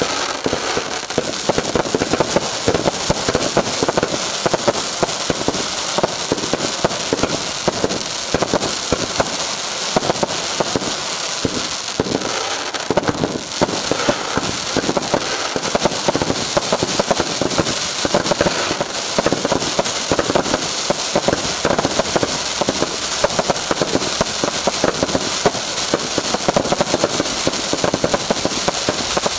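Fireworks going off in a dense, unbroken barrage of rapid crackling bangs, many small reports per second without pause.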